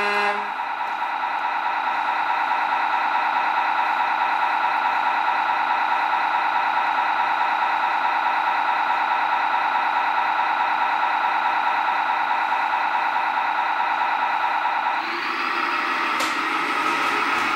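Tamiya RC truck's electronic sound unit playing a steady simulated diesel engine idle, a buzzing tone through a small speaker. About fifteen seconds in the engine note changes.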